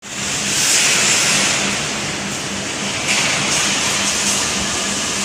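Electric overhead crane working while it lifts a bundle of steel bars: a steady loud hiss of machinery with a low hum pulsing about three times a second.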